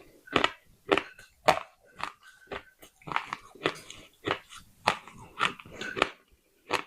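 Pieces of baked clay pot being bitten and chewed: a steady run of sharp, dry crunches, about two a second.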